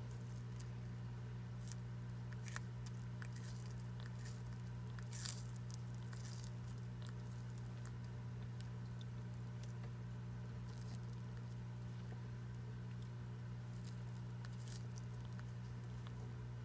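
Horsfield's tortoise biting and tearing a hand-held leafy green, heard as small crisp clicks and crunches in two bouts, the first a little after the start and the second in the later part. A steady low hum runs underneath.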